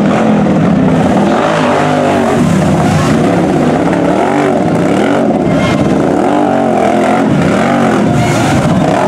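Lifted mud-racing ATV engine revving up and down over and over, about once a second, as the quad churns through deep mud and water.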